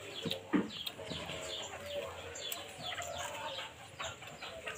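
Birds chirping and chickens clucking: a steady string of short, high, falling chirps with some lower clucks.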